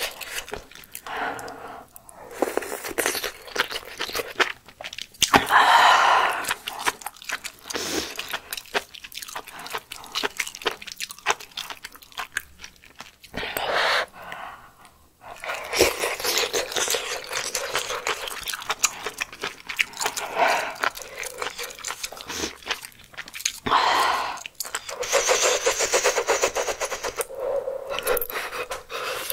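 Close-miked eating of spicy malatang with coriander: noodles and broth slurped in several long draws, with wet chewing and many quick mouth clicks between them.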